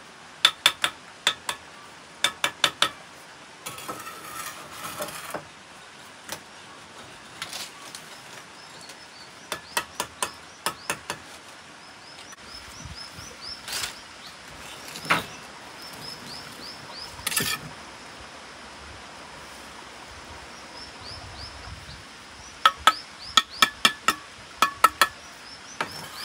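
A bricklayer's trowel tapping bricks down into their mortar: runs of three to six quick, sharp, ringing taps, repeated a few times, with a few single knocks and scrapes between.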